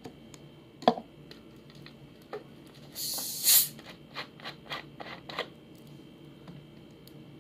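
Screw cap of a two-litre plastic soft-drink bottle being twisted open: a short fizzing hiss of escaping carbonation about three seconds in, followed by a run of small clicks as the cap turns. A sharp knock comes about a second in.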